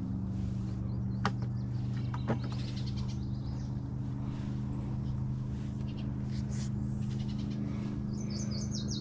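Small birds chirping now and then over a steady low hum, with two sharp clicks about a second and two seconds in.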